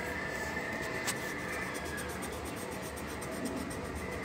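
Pencil scratching on paper while drawing, with one light tap about a second in.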